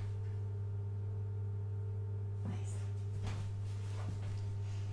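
A steady electrical hum with a higher, pure steady tone that comes in just after the start and holds unchanged: a recurring drone that has just started up again.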